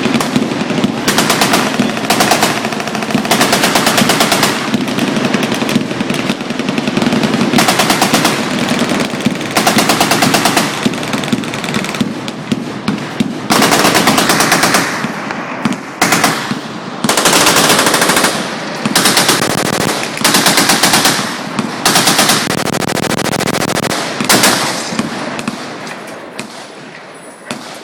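Fully automatic machine-gun fire: loud, rapid bursts of one to two seconds, repeated again and again with more firing rattling on between them, dying away over the last few seconds.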